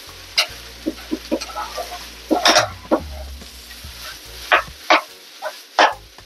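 A spoon stirring fried rice in a frying pan over a sizzle, with sharp, irregular knocks and scrapes of the spoon against the pan.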